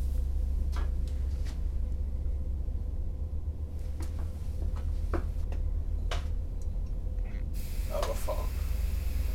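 Steady low rumble with a faint steady tone and a few scattered clicks and knocks, typical of a handheld camera being moved about; a hiss comes up about three-quarters of the way through.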